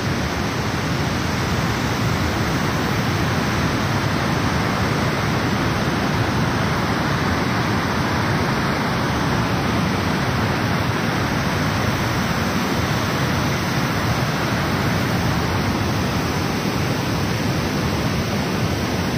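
Montmorency Falls: a loud, steady, even rush of falling water.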